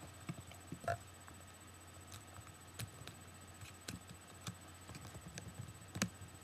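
Faint, scattered small clicks and taps of an opened iPod Video's plastic and metal parts being handled while a replacement screen and its ribbon cable are fitted.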